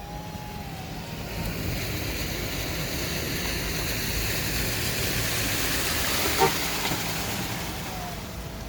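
Floodwater being pushed and sprayed by vehicle tyres: a rushing hiss that swells over a few seconds and fades near the end, over a car's low engine and road rumble, with one short knock about six and a half seconds in.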